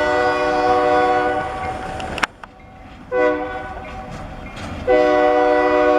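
Air horn of an EMD SD40 freight locomotive blowing a chord of several notes, in separate blasts. A long blast cuts off just over two seconds in, another sounds about three seconds in, and the horn comes back loud about five seconds in and holds.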